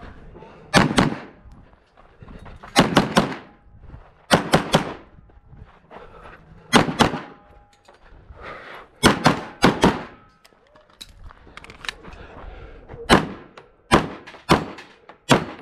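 Gunshots from a semi-automatic pistol fired in quick pairs and threes, with short pauses between the groups as the shooter moves between targets.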